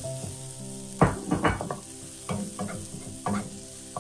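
Chopped chillies, garlic, shallots and lemongrass sizzling in hot oil in a stone-coated wok, with a wooden spatula stirring and scraping them in a run of short strokes from about a second in.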